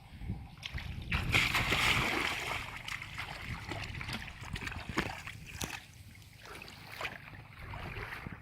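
Water splashing and sloshing, loudest between about one and three seconds in, with scattered sharp knocks and splashes through the rest.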